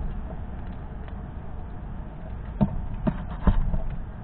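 A squirrel moving about on a wooden stump and seed tray, its feet landing and scrabbling in three sharp taps about half a second apart in the second half, over a steady low rumble.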